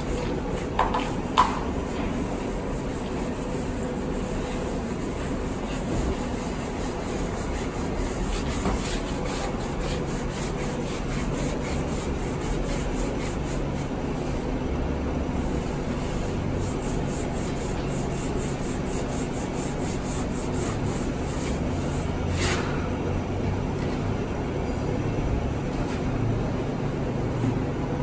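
A gloved hand rubbing wax polish over a workbench top with a pad, a steady scrubbing sound. The wax is a release coat so the fiberglass laid on it will not stick. A short knock about a second in.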